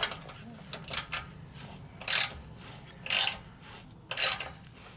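Ratcheting wrench clicking in short bursts, about one return stroke a second, as a bolt is turned on the underside of the frame.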